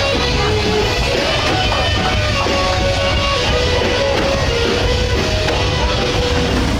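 Rock music with guitar, a run of held notes changing pitch over a dense, steady low end.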